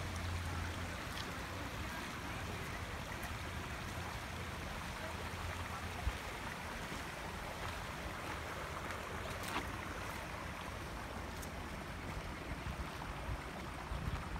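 Shallow creek running over stones: a steady rushing and babbling of water, with a couple of faint clicks in the middle.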